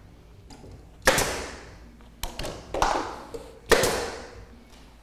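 Blade cutting through a fiberglass insulation batt: four quick sharp slicing strokes, each fading into a short rasp, the first and last loudest.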